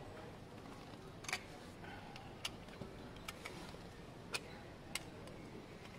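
A handful of faint, irregular clicks and taps from handling a compression tester: its hose fitting being screwed into the spark plug hole of the motorcycle's cylinder head and the gauge being picked up.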